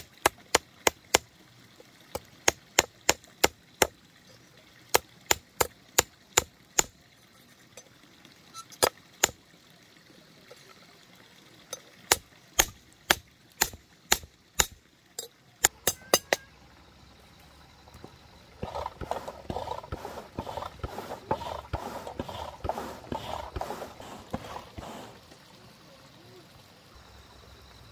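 Hammer blows on iron at the anvil: sharp, loud single strikes in short runs, one to three a second, stopping about sixteen seconds in. A couple of seconds later a rough, noisy sound runs for about six seconds.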